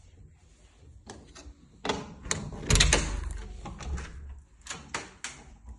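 An interior door being handled and opened: a run of clicks and knocks from the latch and door, with the loudest knock and a low thump about halfway through.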